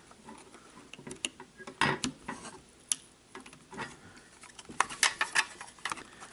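Irregular small clicks, taps and scrapes as a laptop-style SO-DIMM memory module is handled and pressed against its slot inside a mini PC. The module is not seating.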